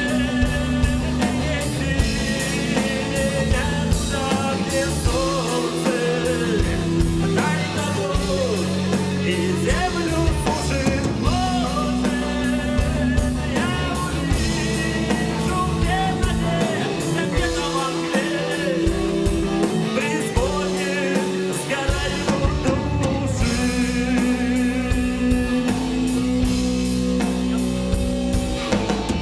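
Rock band playing an instrumental passage: a steady drum-kit beat and guitars over held bass notes, with a lead melody bending up and down in pitch.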